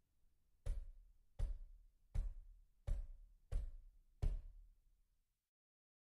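Knocking on a door: six single knocks, evenly spaced and unhurried, each a solid thump with a short ring.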